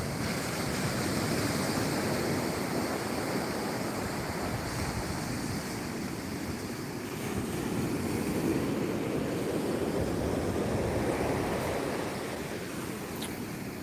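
Ocean surf breaking on a sandy beach: a continuous rush of waves that swells louder twice as breakers come in.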